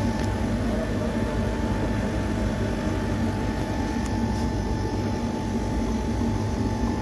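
Split air conditioner's outdoor condensing unit running: steady hum of the compressor and condenser fan, with a steady whine on top. The refrigerant line has gone cold, so the unit is cooling again after its leaking condenser was repaired.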